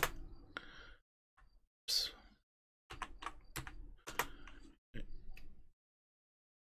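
Typing on a computer keyboard: a few scattered key presses with one louder hit about two seconds in, then short runs of keystrokes that stop about a second before the end.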